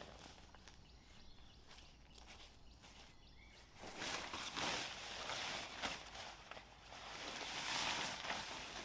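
Close crunching and rustling, like movement over a leaf-littered forest floor, which starts up about four seconds in and keeps going unevenly.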